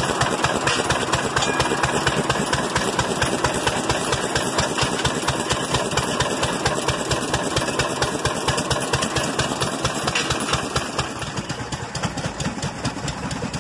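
1.5-horsepower throttle-governed McCormick stationary gas engine running steadily with an even, quick firing beat, sounding healthy. It gets a little quieter near the end.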